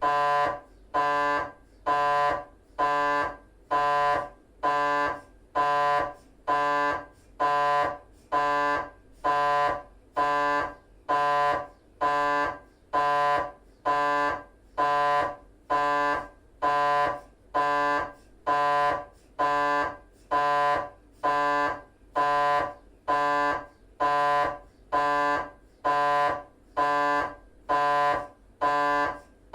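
GE 3 T MRI scanner running a T1 axial 3D FSPGR sequence, its gradient coils buzzing. The buzz pulses evenly, about once a second, each pulse a little over half a second long with short gaps between.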